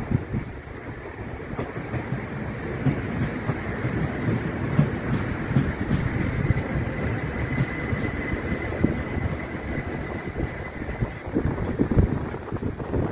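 Southern Class 377 Electrostar electric multiple unit rolling past, its wheels rumbling over the track with irregular knocks from rail joints. A faint steady high tone sounds for a few seconds in the middle.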